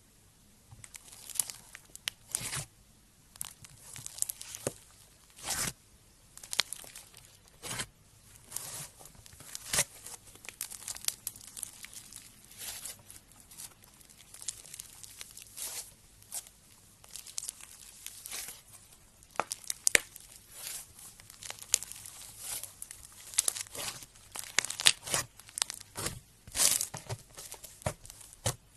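Slime being squeezed and stretched by hand, giving irregular sticky crackles, snaps and pops.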